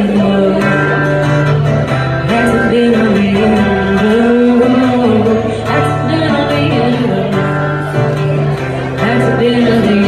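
A woman singing a song live to her own acoustic guitar accompaniment.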